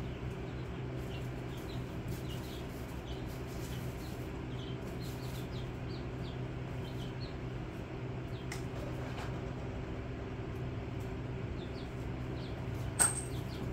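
Chicks peeping faintly and now and then over a steady low electrical hum. A single sharp click near the end is the loudest sound.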